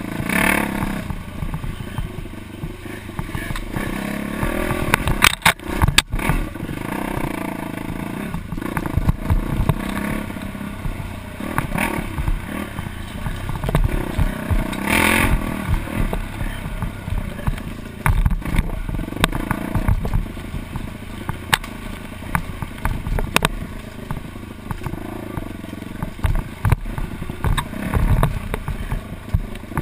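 Dirt bike engine running with revs rising and falling over a rough trail, with frequent clattering knocks from the bike over bumps.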